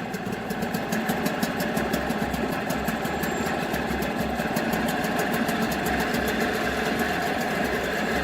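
Nissan 5 hp two-stroke outboard motor running steadily at idle with a fast, even beat. It runs again after its carburetor was cleaned and a new spark plug fitted.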